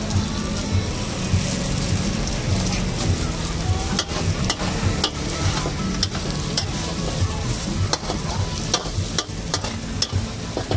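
Chicken and noodles sizzling in a steel wok while a metal ladle scrapes and stirs them. From about four seconds in, sharp clinks of the ladle striking the wok break in every so often over a steady low rumble.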